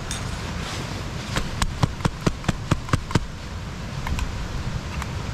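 Camp cookware being handled: a quick run of about nine light clicks and taps over a couple of seconds, over a steady low rush.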